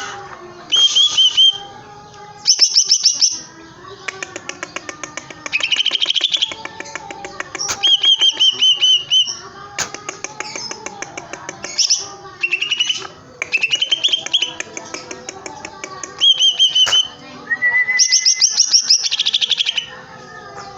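Cucak ijo (leafbird) singing loudly and without letup: a string of phrases mixing fast rattling trills with high whistled warbles, broken by short pauses.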